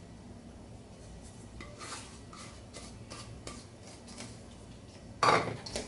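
Light clinks and scrapes of a utensil against a small bowl and a stainless steel mixing bowl as beaten egg is scraped into mashed potato, with one louder clatter about five seconds in.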